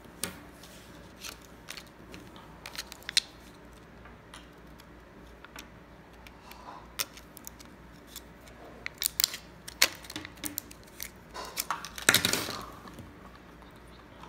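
Small handling sounds of a CR2032 coin-cell blister pack being opened: scattered clicks and crinkles of the plastic and card backing, with a longer tearing crackle about twelve seconds in.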